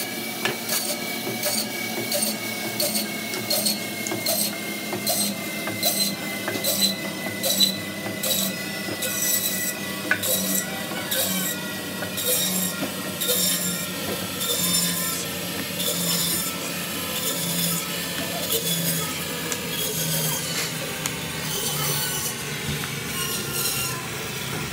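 Meat band saw running, its blade cutting through mutton bone and meat as chops are sliced off. A steady whine runs under a rasping pulse that repeats about once a second.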